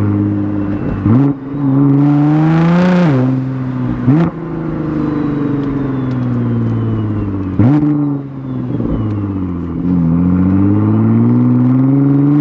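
Nissan GT-R R35's twin-turbo VR38 V6, running a catless midpipe, accelerating hard through the gears: the engine note climbs in pitch and drops sharply at each dual-clutch upshift, three times, then eases off and builds again near the end.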